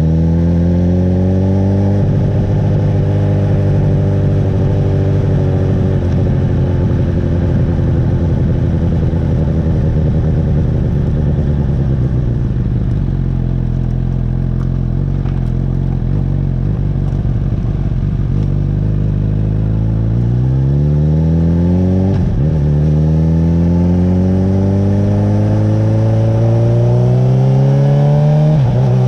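Honda CB1000R's inline-four engine under way, climbing in pitch as it accelerates and dropping suddenly at each upshift: once early, then easing off through the middle before pulling hard again, with two more upshifts near the end.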